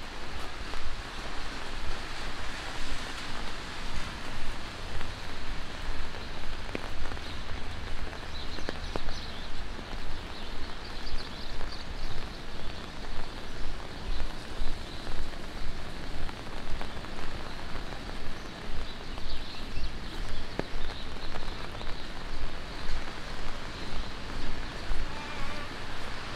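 Steady rain falling on a wet city street, with footsteps in a regular beat of about two a second.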